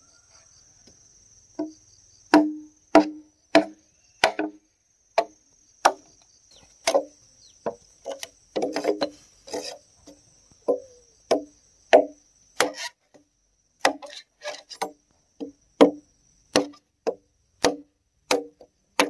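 A tool striking wood over and over, each blow sharp with a short ringing knock, roughly one to two blows a second, with a quicker flurry about halfway through.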